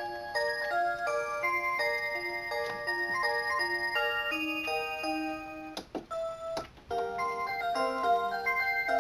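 Electronic melody from a clock's built-in music chip, playing a Christmas tune in simple electronic notes with a few parts at once. About six seconds in the tune breaks off with two sharp clicks, and another clock melody starts a second later.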